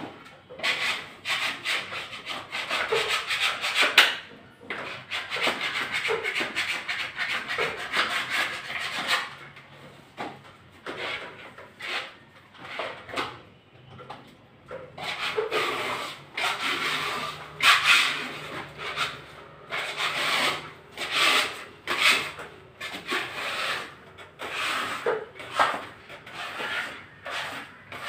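Scraper rasping against the wall in quick repeated strokes, stripping off old wallpaper, in runs of scraping broken by short pauses. A sharp knock about four seconds in.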